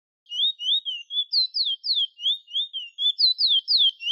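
Chestnut-bellied seed finch (the Trinidad 'bullfinch') singing a fast run of clear whistled notes, about four a second, some short rising slurs and some longer notes sliding down from high.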